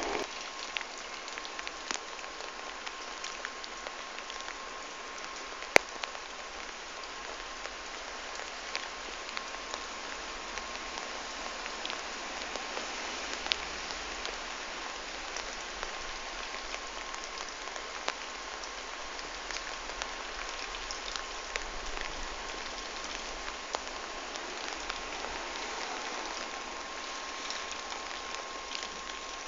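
Steady rain falling and pattering on hard surfaces, with scattered drip ticks and one sharp click about six seconds in. A faint steady tone runs underneath.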